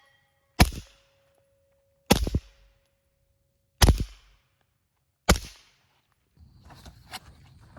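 Four single pistol shots from a suppressed 9 mm Glock 19X, evenly paced about a second and a half apart, each a sharp crack with a short echoing tail. Faint rustling and small clicks follow near the end.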